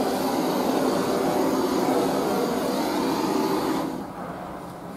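Handheld butane torch on a gas canister burning with a steady hiss, its flame played over an end-grain board to melt an oil-wax coating into the wood. The flame is shut off about four seconds in.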